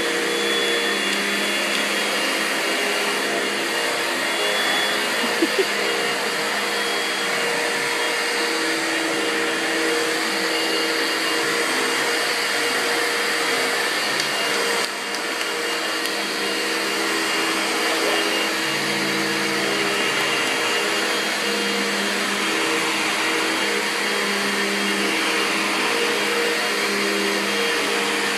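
Vacuum cleaner running steadily on carpet, its motor hum shifting a little in pitch. A brief dip in level comes about halfway through.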